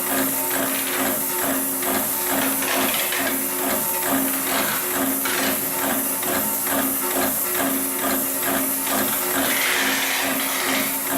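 Hightex 733PLC/R heavy-duty automated sewing machine running, its needle mechanism stitching through thick double esterlon rigging rope in an even, rapid knocking rhythm over a steady motor hum. A brief hiss joins in near the end.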